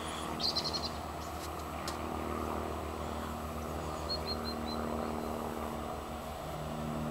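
Steady low drone of a distant engine with an even pulsing hum. Birds chirp briefly about half a second in and again around four seconds.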